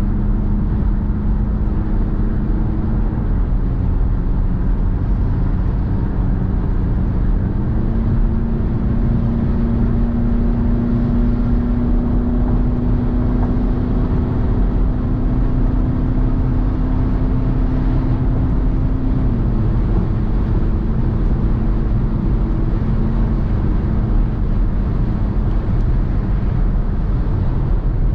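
Car driving at motorway speed: steady road and tyre noise with a low engine hum. The hum's pitch drops slightly a few seconds in, rises about eight seconds in, and drops again about two-thirds of the way through.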